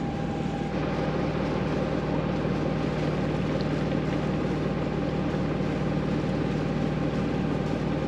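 A sailboat's inboard engine running steadily under way, a constant drone with an even hiss of wind and water over it.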